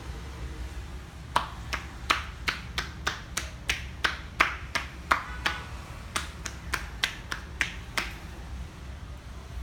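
Percussive massage strikes, palms pressed together so that the loose fingers clap as the hands chop against the thigh. About twenty sharp claps at roughly three a second, with a short break about halfway through.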